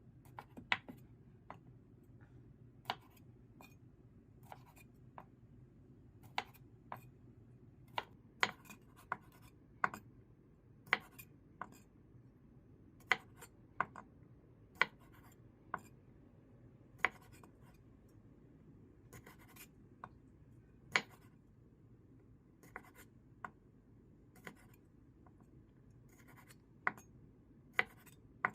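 Scattered, irregular sharp clicks and knocks of kitchen utensils during food preparation, over a faint steady low hum.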